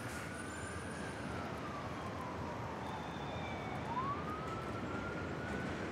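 An emergency vehicle's siren wailing. Its pitch rises a little, falls slowly, then climbs quickly again about four seconds in, over a steady rush of noise.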